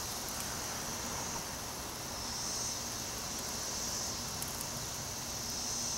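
Insects chirring steadily in a high-pitched band that slowly swells and fades, over a low background hiss.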